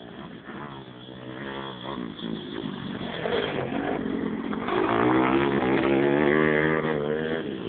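Pit bike engine revving, its pitch rising and falling as it is worked. It grows louder from about a second in, is loudest past the middle, and eases off near the end.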